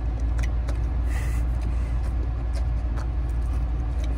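Steady low rumble of a car, heard from inside the cabin, with a few faint clicks and a brief hiss about a second in.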